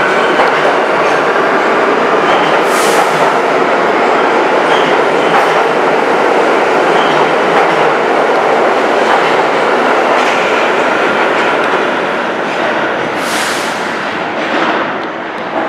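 New York City Subway train running past close along the platform: a loud, steady rumble that fades over the last few seconds. There are two short hisses, one about three seconds in and one near the end.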